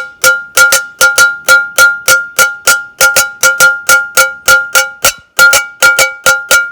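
A metal spoon drumming rapidly on the metal lid of a sugar canister, about three strikes a second. Each hit rings at the same clear pitch.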